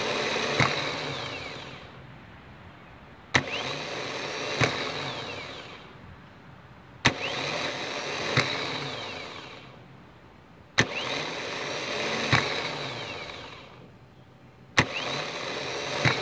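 Ford 460 V8 starter motor on a bench test, energised again and again: each time the solenoid clicks in sharply, the motor spins for about a second, a second click follows, and it winds down. This happens four times, about every four seconds. The starter and its solenoid are working reliably.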